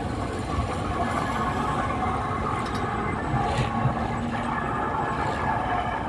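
Road-repair machinery running steadily during pothole patching: a loud, continuous mechanical noise with a held whine.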